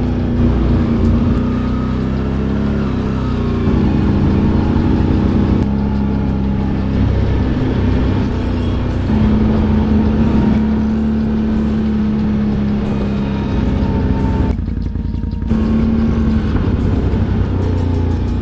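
Can-Am ATV engine running steadily while riding along a dirt trail, heard close up from a camera mounted on the machine. The drone eases briefly about three-quarters of the way through, then carries on.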